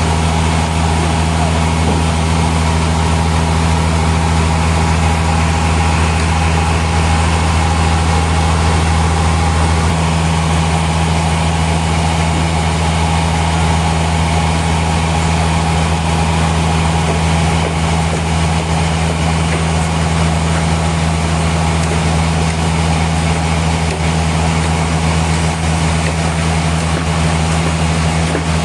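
Sawmill machinery running steadily: a constant low hum with a fainter steady whine above it, with no cutting strikes or changes in speed.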